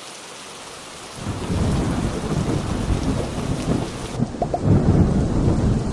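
Steady rain, then about a second in a deep rumble of thunder sets in and keeps rolling under the rain.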